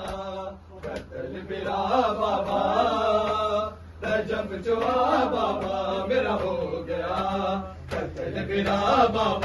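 Men's voices chanting a nauha, an Urdu mourning lament, in long drawn-out phrases. A few sharp slaps, hands striking bare chests in matam, fall between the phrases.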